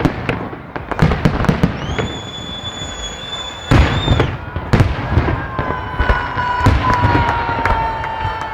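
Fireworks salute: repeated bangs and crackling bursts, with a high steady whistle for about two seconds in the middle and a lower whistling tone slowly falling near the end.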